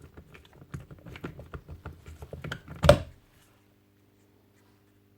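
Quick run of light clicks and rattles from small metal power-tool parts being handled on a workbench, ending in one louder knock about three seconds in as a part is set down.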